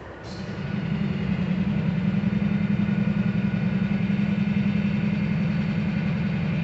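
Diesel engines of Union Pacific SD59MX locomotives on an approaching freight train, a low steady drone that grows louder over the first two seconds and then holds.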